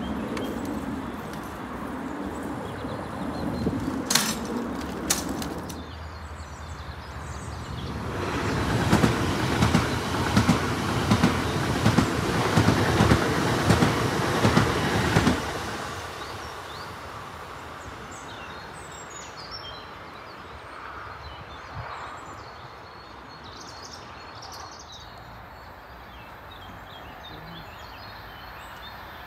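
DB Class 1440 electric multiple unit passing close by, building from about eight seconds in to a loud rush with a regular clatter of wheels over rail joints, about two beats a second, then fading away after about fifteen seconds. Before it come a low hum and two sharp clicks, and faint bird chirps follow.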